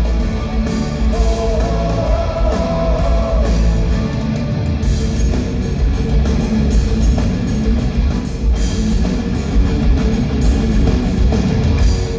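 Live rock band playing loud electric guitars over a drum kit with no vocals, heard from within the concert-hall audience.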